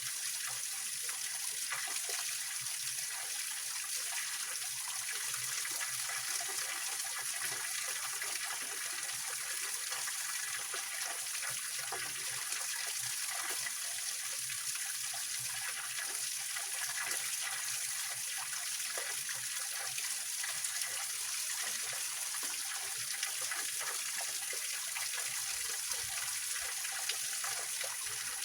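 A small mountain-stream waterfall splashing and trickling over rocks: a steady, unbroken rush of water with a bright hiss.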